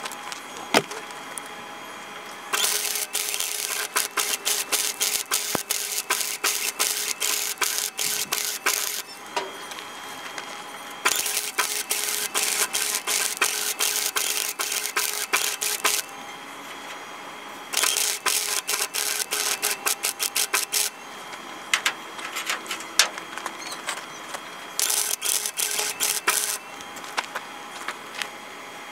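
Wire-feed (MIG) welder arc crackling steadily in about five runs of a few seconds each as beads are laid on rusty truck sheet metal, with a steady hum in the pauses between runs.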